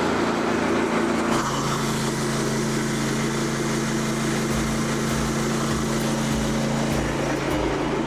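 Engine running steadily, which changes note and settles into an even hum about a second and a half in.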